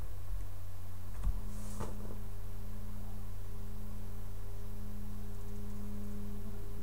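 Steady low electrical hum with a faint click early on; about two seconds in a soft, sustained drone tone comes in and holds, the start of quiet background music.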